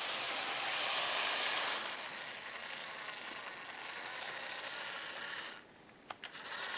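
Bachmann HO-scale Plasser EM80C track cleaning car running along its track, its small pancake motor and gears making a steady mechanical whirr. It runs smoothly, without the commutator whine or screech these units are known for. The sound drops out about five and a half seconds in, with a couple of small clicks, then picks up again.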